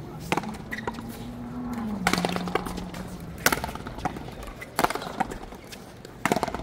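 Paleta frontón rally: a series of sharp knocks as the ball is struck by paddles and rebounds off the wall, roughly one every one to one and a half seconds.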